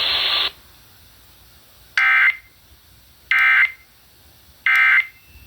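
Emergency Alert System end-of-message signal: three short, identical bursts of SAME data tones, evenly spaced about 1.3 seconds apart, closing a tornado warning. The hiss of the broadcast cuts off about half a second in, before the first burst.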